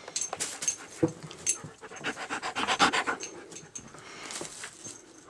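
A dog panting in quick, rapid breaths close to the microphone, loudest about two to three seconds in, with small clicks mixed in.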